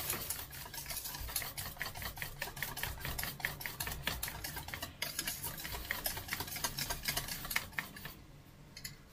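Wire balloon whisk beating a thin batter in a metal bowl, the wires ticking rapidly and rhythmically against the bowl. The whisking stops about eight seconds in.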